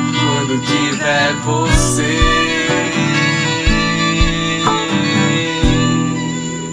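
Acoustic guitars strumming and picking a slow song, with a voice singing in the first couple of seconds and a few soft low thumps. Near the end a chord is left ringing and fades away.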